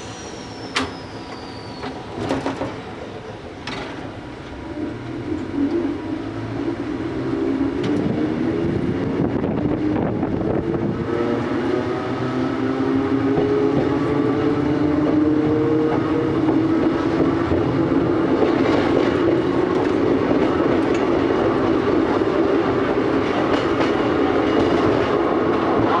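Vintage Kotoden electric railcar's traction motors and gears whining as the train pulls away and gathers speed, the whine climbing in pitch, steeply at first and then more slowly, over the rumble and clack of wheels on the rails and through the points. A few sharp knocks in the first few seconds.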